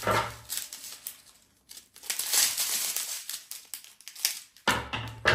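Thin plastic drill bags crinkling and rustling as a strip of them is handled and laid on a table, in irregular bursts, with a dull bump at the start and another near the end.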